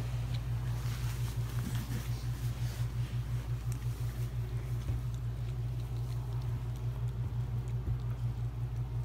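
A mother dog licking and mouthing her newborn puppy, with small wet licking and rustling sounds, over a steady low hum.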